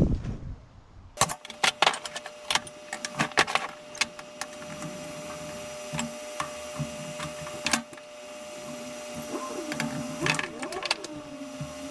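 Steel tubing clicking and knocking as the pieces of a welded frame are handled and fitted together on a workbench, over a steady hum. A wavering tone comes in near the end.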